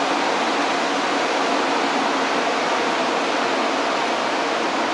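Steady, even rushing noise of station platform ambience, with no distinct events.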